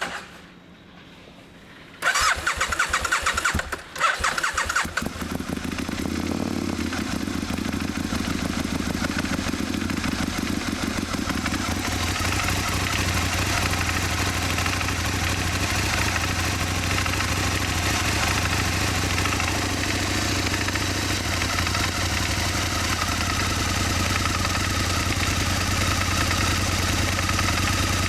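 Aprilia Mille R's V-twin cranked on the electric starter for about two seconds; it catches about five seconds in and settles into a steady idle. This is the tick-and-knock noise whose cause the owner is asking about.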